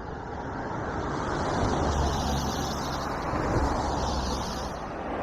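A road vehicle going by: tyre and engine noise swelling to a peak about two to three seconds in, then easing off.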